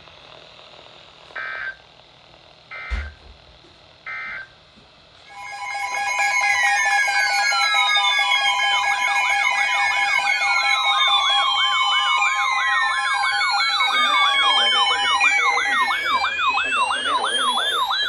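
NOAA weather radio broadcast ending with three short data-tone bursts about a second apart. About five seconds in, several weather alert radios go off at once, loud: steady alert tones overlap with warbling, sweeping siren tones as the radios sound the alarm for a new warning.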